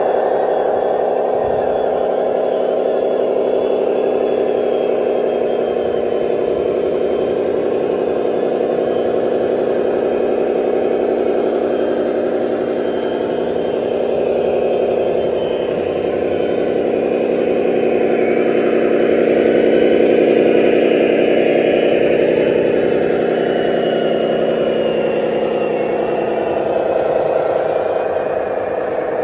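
Radio-controlled model dump truck running, a steady engine-like drone that holds nearly one pitch and swells a little around the middle.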